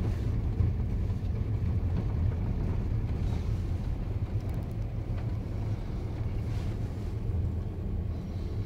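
Steady low rumble of a car driving on a snow-covered road, heard from inside the cabin: engine and tyre noise with no sudden events.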